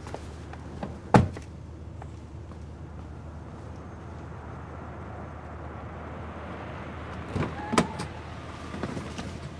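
Inside a car: a steady low engine hum, with a sharp clunk about a second in and two more clunks near the end, the sounds of the car's doors and fittings being worked.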